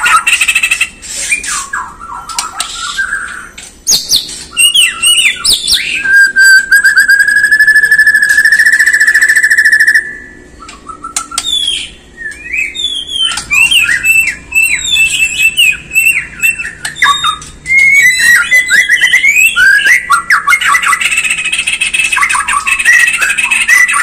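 White-rumped shama singing a loud, varied song of quick whistled phrases, with one long, nearly level whistle held for about four seconds in the middle and a brief lull after it.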